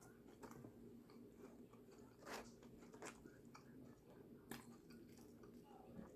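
Faint chewing of a sandwich, with scattered soft mouth clicks; a few sharper clicks come at irregular moments.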